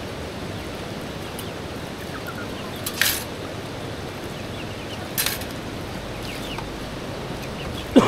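Dishes being washed by hand in basins: two short sharp clacks of crockery knocking together, about three and five seconds in, over a steady background hiss.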